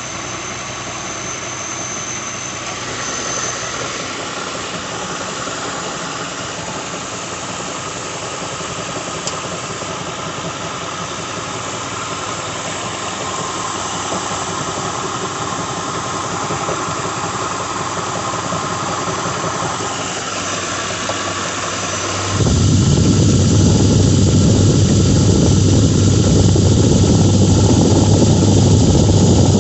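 2006 Lincoln Town Car 4.6-litre V8 idling with a whirring rattle from the crankshaft harmonic balancer, which the owner diagnoses as a bad harmonic balancer. The sound gets suddenly louder and deeper about three quarters of the way through.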